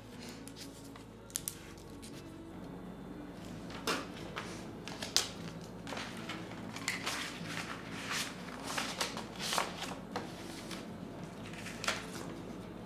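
Paper rustling and crinkling as a greeting card and a paper envelope are handled and the card is slid into the envelope, a string of short crisp rustles starting about four seconds in.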